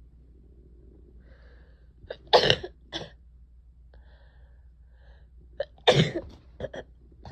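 A person with a head cold of more than a week sneezing loudly twice, about three and a half seconds apart. Each sneeze is followed by short coughs.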